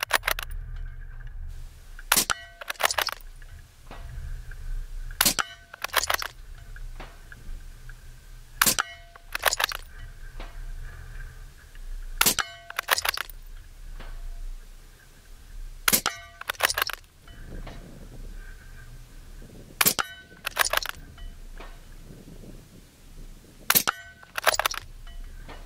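Suppressed Ruger Precision Rifle firing rapid aimed shots, seven in all, about one every three and a half seconds. Each shot is followed within a second by a second sharp crack.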